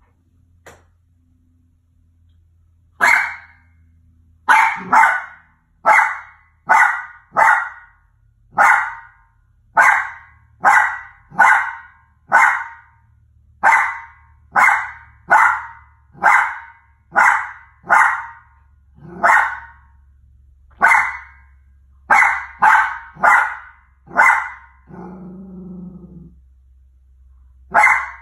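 A Maltese barking at its own reflection in a mirror: a long run of short, sharp barks, about one or two a second, starting a few seconds in, broken near the end by a brief low growl before one more bark.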